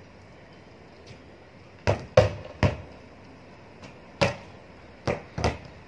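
Volleyball being hit and bouncing: six sharp thumps at uneven intervals, three close together about two seconds in (the loudest among them), one a little past four seconds and two near the end.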